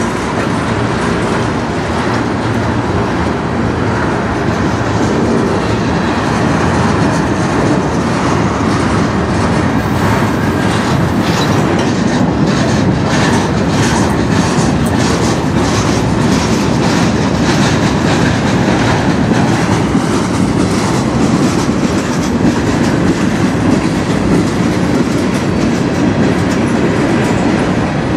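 Freight cars of a CN manifest train rolling past close by: a steady rumble of steel wheels on rail. About halfway through comes a run of rhythmic clicks as the wheels cross rail joints.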